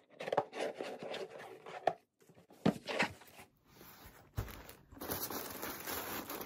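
Handling of a ribbon-tied cardboard gift box, with short rustles and scrapes as the ribbon is pulled off and the lid opened, and a soft thump about four and a half seconds in. Steady crinkling of tissue paper follows near the end.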